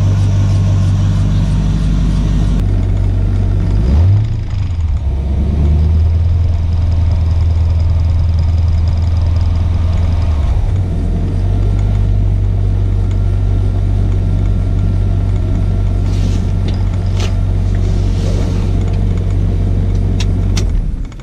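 LS V8 swapped into a 1980 Chevy C10, exhausting through dual Thrush glasspack mufflers, idling shortly after a cold start. About four seconds in the revs rise briefly and fall back; the idle then runs a little higher for several seconds before settling. The engine is switched off just before the end.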